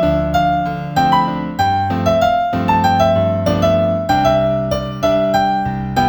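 Background piano music: a steady run of single melody notes, two or three a second, over low held chords.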